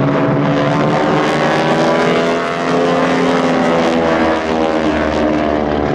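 North American T-6 Texans' Pratt & Whitney R-1340 nine-cylinder radial engines and propellers droning loudly as the formation dives and rolls overhead. The engine pitch bends and shifts as the aircraft pass.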